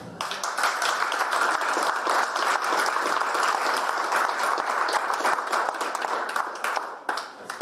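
Audience applauding: many hands clapping together, starting right away and dying off near the end.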